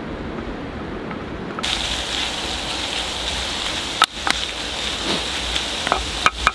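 Ground meat sizzling in a cast-iron Dutch oven over a wood fire, starting about a second and a half in, with a wooden spatula scraping and knocking against the pot several times as it is stirred. Before the sizzling begins there is only a low wind and river noise.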